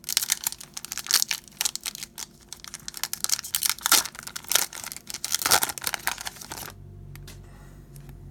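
Crinkling and tearing of a trading-card pack wrapper as a pack of hockey cards is opened and handled, a dense run of sharp crackles that stops about two-thirds of the way through.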